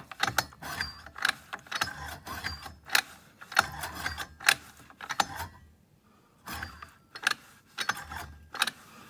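Small two-stroke pocket bike engine turned over by hand with its pull starter, not firing: repeated clicking and ratcheting of the starter and engine internals in short bursts, with a pause about six seconds in. The engine is being spun to flush cleaning solution through the oil-fouled crankcase.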